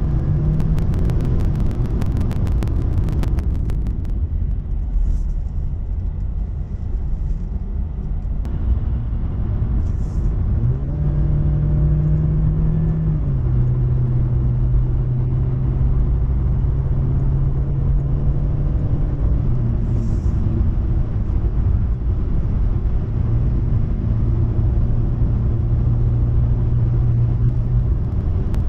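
A car driving, with engine and road rumble heard from inside the cabin. The engine hum steps up and down in pitch a few times, and a fast rattle runs through the first few seconds.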